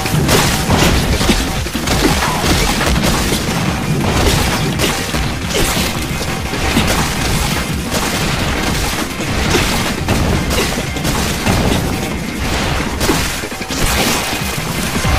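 Loud action-film score mixed with repeated sword-slash, crash and boom sound effects from a katana fight.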